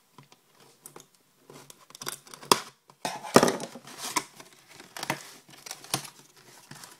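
Plastic shrink-wrap being slit and torn off a cardboard trading-card hobby box, with crinkling, and the box's cardboard lid opened. It comes as a string of short rustling bursts, the loudest about three and a half seconds in.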